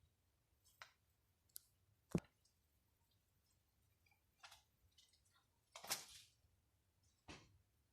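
Slime being kneaded and mixed with foam clay, giving about half a dozen soft, sticky clicks and squishes spaced a second or so apart, with a sharp click about two seconds in and a longer squish about six seconds in.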